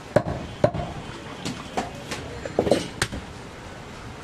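A butcher's cleaver chopping goat meat, about seven sharp, irregular strikes.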